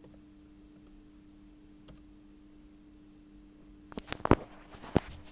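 A few faint keyboard key clicks, then a cluster of louder sharp clicks and knocks about four seconds in, over a steady low electrical hum.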